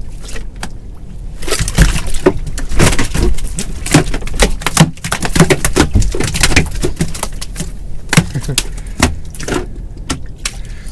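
Conger eel thrashing loose on a small boat's deck: a quick, uneven run of wet slaps and knocks against the hull, starting about a second and a half in.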